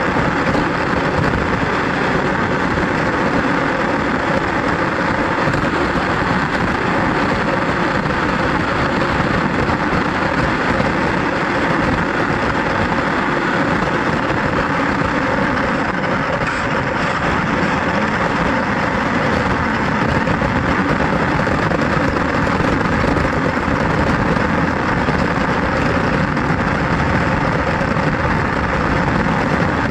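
Steady rumbling road noise from a radio-controlled car driving over pavement, picked up by a camera riding on the car, with a faint steady motor hum underneath.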